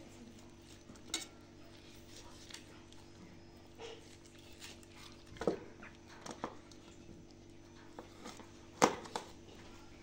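Raw chicken being pulled apart by hand on a steel tray, with scattered clicks and knocks of the meat and a kitchen knife against the metal. The loudest clink comes near the end, another about halfway through.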